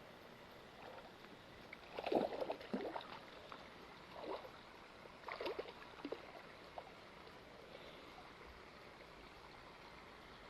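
Water splashing and sloshing in a few short bunches over a low steady hiss.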